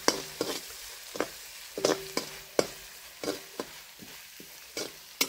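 Metal spatula scraping and knocking against a large metal kadai, stirring a frying onion-and-spice masala over a faint sizzle. The strokes come irregularly, a few to a second, and some leave a short metallic ring.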